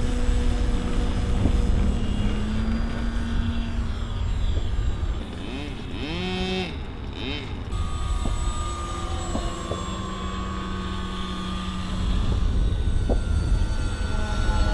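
Radio-controlled model plane's engine and propeller running steadily in flight. Its pitch swings up and down briefly about six seconds in, over a low rumble.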